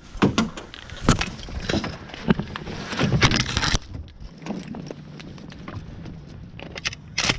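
Clunks and knocks of a hunter and his gear moving about in a small camouflaged boat, mixed with the rustle of brush and branches being pushed through. There are several sharp knocks, a longer rustling stretch about three seconds in, and another sharp knock near the end.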